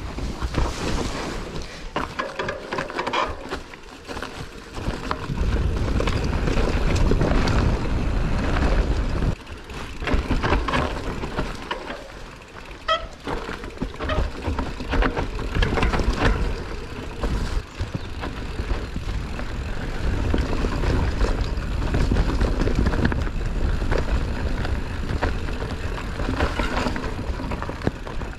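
Mountain bike being ridden on a trail: wind buffeting the microphone in surges, with frequent clicks and knocks from the bike rattling over rough ground.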